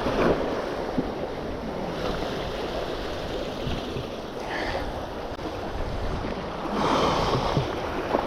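Sea waves washing against jetty rocks, with wind buffeting the microphone; the rush swells louder about seven seconds in.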